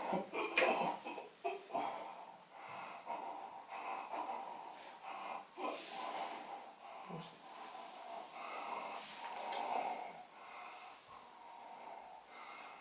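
A cat breathing noisily with irregular snorts and wheezy puffs, close to the microphone.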